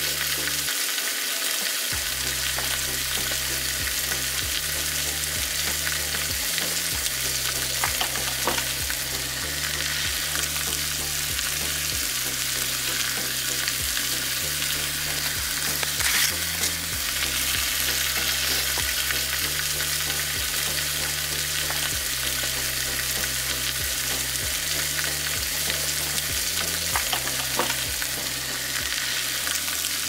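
Meat frying in a pan, sizzling steadily, with a few scrapes and clicks of stirring.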